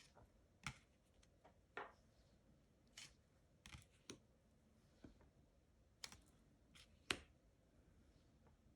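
Tarot cards being flipped and set down one after another: a string of short, sharp clicks and snaps of card stock, roughly one a second, the sharpest about seven seconds in.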